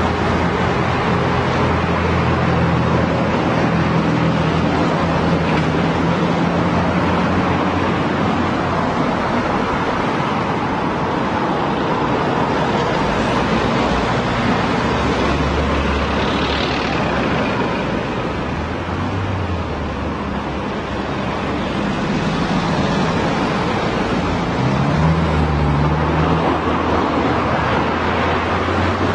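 Road traffic: a steady wash of car noise with the low hum of engines, one engine note rising briefly near the end.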